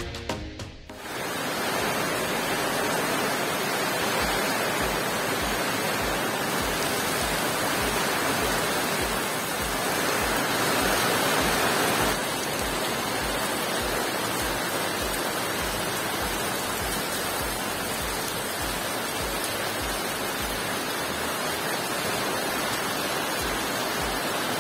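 Heavy rain falling steadily: a dense, even hiss that grows a little louder for a couple of seconds about ten seconds in.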